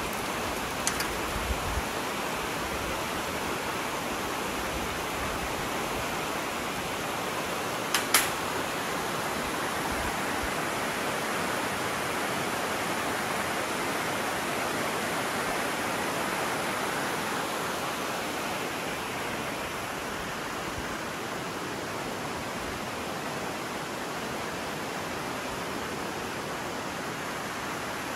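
Shallow river running over rocks and rapids: a steady hiss of rushing water. A few small clicks come about a second in, and a sharper double click about eight seconds in.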